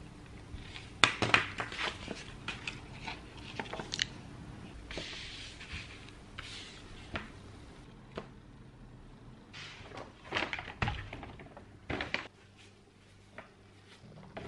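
Kitchen handling sounds: scattered knocks and clicks of things being picked up and set down, with a short rustle about five seconds in.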